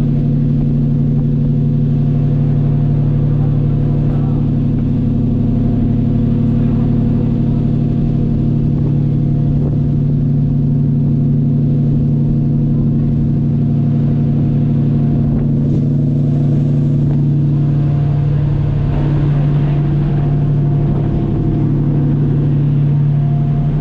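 Passenger ferry's engines droning steadily: a deep, even hum of several low tones under a rushing hiss of wind and churning water.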